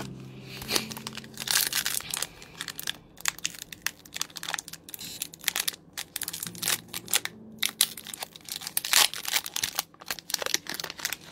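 Foil Pokémon booster pack wrapper crinkling and being torn open, a rapid irregular run of sharp crackles.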